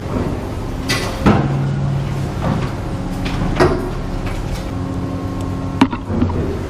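Excavator engine running steadily on a demolition site, with several sharp knocks and clanks of breaking concrete and debris, the sharpest near the end.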